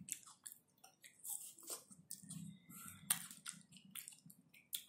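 Close-miked chewing and wet mouth smacks while eating a purple ice pop, a scattering of soft clicks and squelches.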